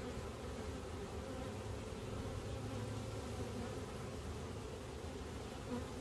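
A honey bee swarm buzzing steadily at close range, a low, even hum of many bees: the calm sound of a settled swarm being handled gently.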